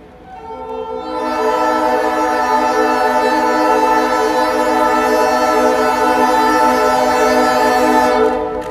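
Train air horn sounding one long, steady chord of several notes. It swells in over the first second or so and stops shortly before the end.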